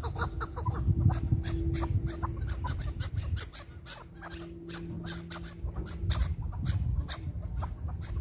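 Chukar partridge calling: a long run of short, sharp notes, several a second, over a low rumble.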